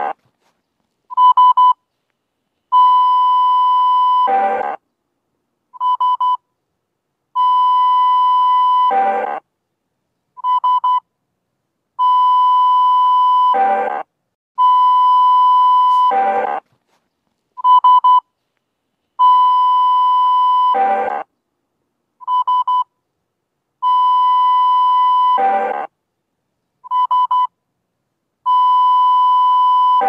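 Synthesized emergency-alert alarm for a mock earthquake warning: a buzzy tone near 1 kHz repeating in a cycle about every four and a half seconds. Each cycle has a long beep of about two seconds that ends in a short, harsher, lower burst, followed by a quick double beep.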